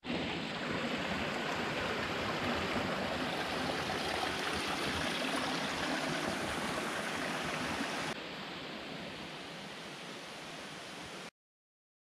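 Small forest stream running, a steady rush of water. It drops to a quieter level about 8 seconds in and cuts off abruptly near the end.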